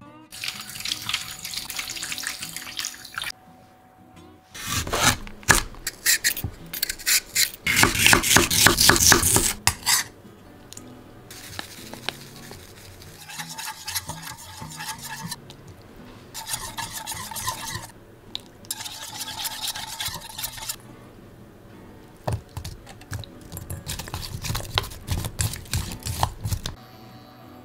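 Kitchen food preparation: scraping and rustling at a stainless steel sink, loudest from about five to ten seconds in, then a stainless steel mixing bowl being stirred in short bouts with a light ringing, and sliced lotus root tossed in flour in the bowl near the end.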